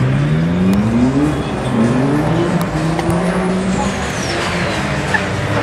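Tuned street car's engine accelerating through the gears: its pitch climbs, drops at a gear change about a second in, climbs again and drops at a second shift, then holds steady.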